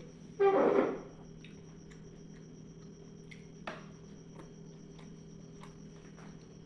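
Eating sounds close to the microphone: scattered small wet clicks of chewing and lip smacks, with one louder, half-second noise about half a second in and a sharper click a few seconds later.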